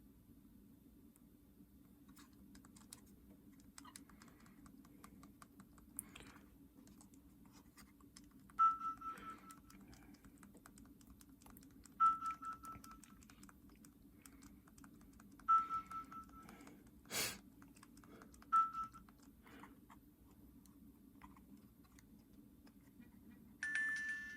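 Light clicking and tapping while a Nintendo DS Lite is handled and played, with four short electronic beeps and one sharp click partway through.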